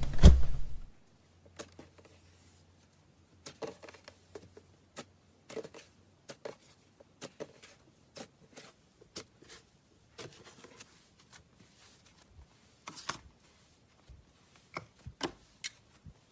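Cloud slime being stretched and squeezed by hand, giving soft, irregular crackles and pops. In the first second, a loud thump over a low hum cuts off.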